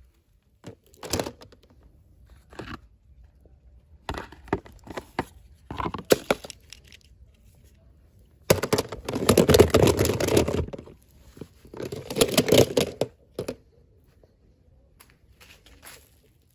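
Packaging being torn open and crinkled by hand, in short scratchy bursts and then two longer tears about halfway through.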